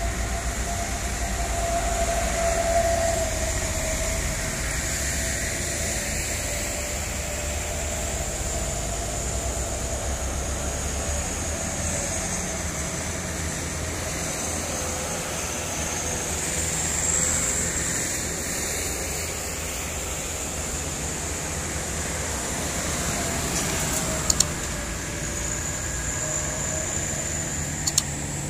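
Heavily loaded sugar-cane trucks' diesel engines labouring slowly up a steep grade, a steady low drone with a wavering whine; the heavy load keeps them from going fast. Two short clicks near the end.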